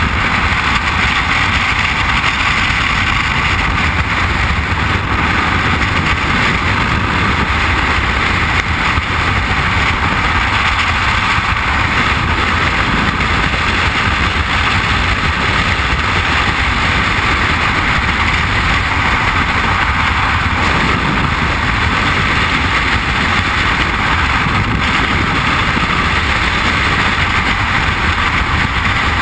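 Loud, steady rush of freefall wind buffeting the camera microphone, unbroken throughout.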